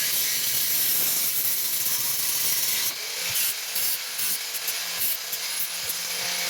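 An electric grinder or sander working metal: a steady rough abrasive noise over the low hum of its motor, turning uneven and choppy about three seconds in.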